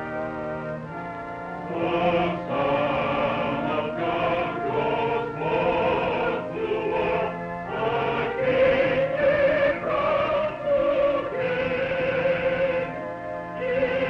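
Parlor reed organ playing held chords, joined about two seconds in by a small group of mixed voices singing a hymn together, with the organ accompanying and short pauses between phrases.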